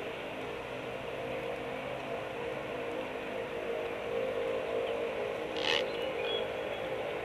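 A steady mechanical hum, with one short hissing burst a little past halfway through.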